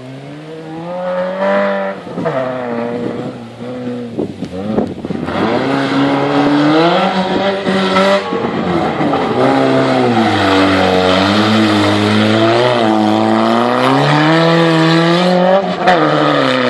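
Rally car's engine, running without a silencer, revving up and falling back again and again as it is driven hard round a dirt track. It gets louder about five seconds in as the car comes nearer.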